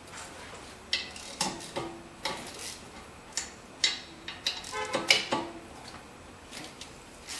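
Irregular metallic clicks and clinks of a socket wrench being fitted to and worked on brake caliper bolts, a few of them ringing briefly.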